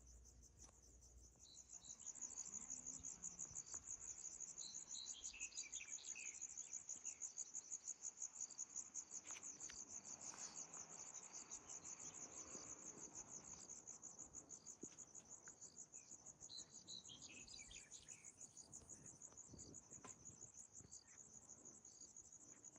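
Insects trilling in a fast, steady, high-pitched pulse that comes in about two seconds in, with a few faint chirps dropping in pitch.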